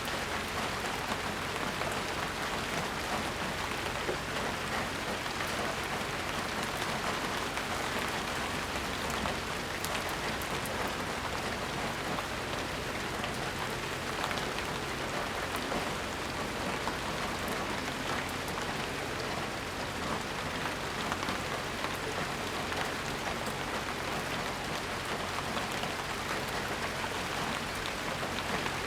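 Steady, even rainfall, a dense patter of raindrops with fine scattered ticks of drops landing, and no thunder.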